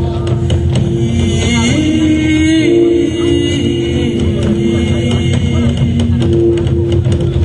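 Live Korean group drumming in a fast, continuous roll, played to evoke galloping horse hooves, with long held melodic tones over it that slide in pitch about two seconds in.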